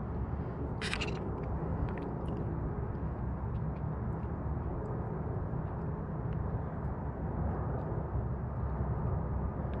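Motor oil pouring from a plastic jug through a plastic funnel into an engine's oil filler, over a steady low rumble, with a brief sharp sound about a second in.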